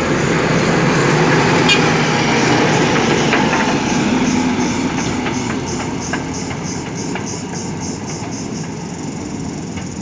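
JCB 3DX backhoe loader's diesel engine working under load, with scattered metallic clanks and knocks. The engine noise eases off somewhat in the second half.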